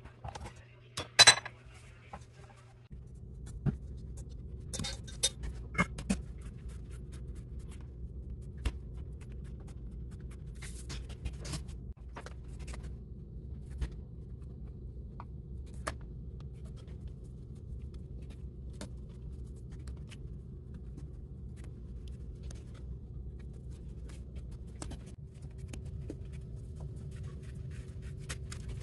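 Handling sounds of bread dough being worked: a sharp clank from the stainless steel mixer bowl about a second in, a few more knocks a few seconds later, then scattered light taps and scrapes of a plastic bench scraper and hands on a silicone mat. A steady low hum starts about three seconds in.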